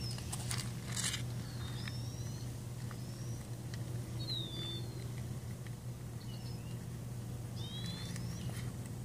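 Outdoor ambience: small birds give short, high chirps every second or two over a steady low hum, with a few faint clicks in the first second.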